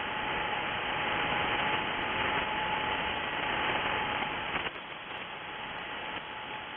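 Shortwave SSB receiver audio between transmissions: steady band-noise hiss with a faint steady heterodyne whistle. The hiss drops suddenly in level about two-thirds of the way through.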